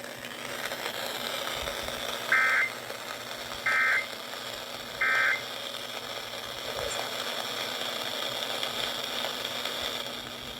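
Three short EAS digital data bursts, the end-of-message tones that close an alert, squawking from a radio receiver at even spacing about a second apart. A steady radio hiss runs under them.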